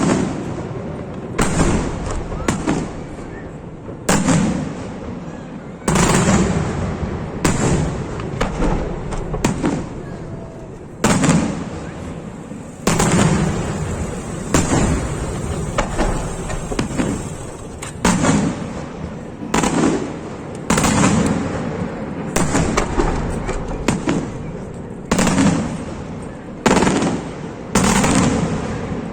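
Aerial fireworks display: shell bursts going off in quick succession, a sharp bang every one to two seconds, each echoing away, with crackling in between.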